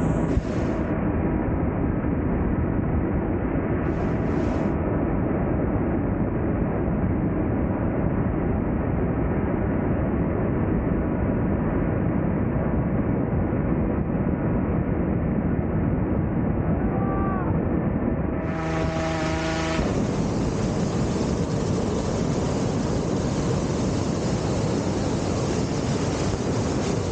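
Steady, unbroken roar of a hot air balloon's inflation: the inflator fan's engine and the propane burner blowing hot air into the envelope as it fills and stands up.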